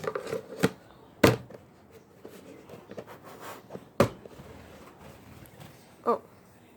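Handling noises from bird-feeding gear: a few sharp knocks and clacks of hard objects, the loudest about a second in and another about four seconds in, with light rustling between.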